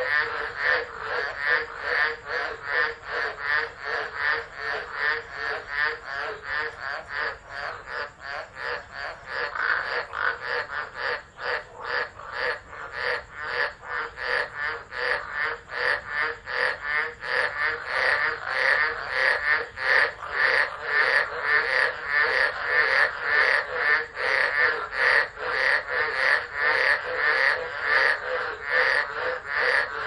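Dense chorus of many tropical frogs calling at once, a rapid, unbroken pulsing of overlapping calls that grows a little louder in the second half.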